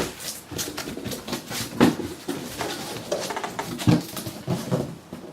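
A package being unwrapped and handled by hand: irregular rustling and crinkling, with a few sharper knocks.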